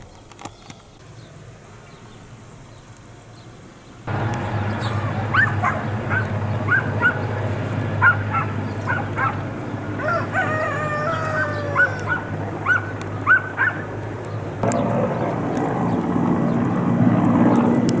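Dogs barking repeatedly, with a few drawn-out howls, over a steady low drone. It is quieter for the first four seconds, then grows suddenly louder.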